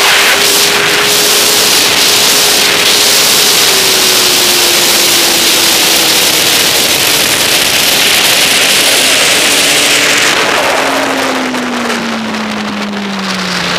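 Motorcycle at speed on a track straight: heavy wind rush on the bike-mounted camera over the engine's steady note. About ten seconds in the wind eases and the engine note falls as the bike slows for the chicane.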